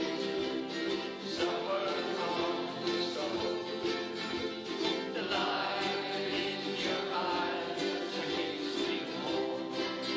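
Ukulele strumming chords in a steady rhythm.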